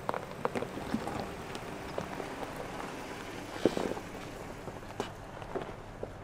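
Pickup truck crawling past on a dirt trail: its tyres crunch and crackle over dirt and forest debris with many small irregular pops, over a low engine hum. A sharper crunch comes about three and a half seconds in.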